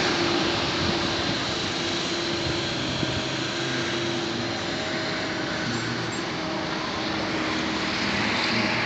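A vehicle engine running steadily under an even hiss of street noise.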